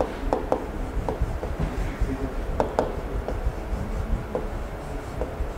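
Handwriting on the glass face of a large interactive touchscreen: about nine light, sharp taps of the writing tip on the glass as letters are drawn, some in quick pairs, over a steady low room rumble.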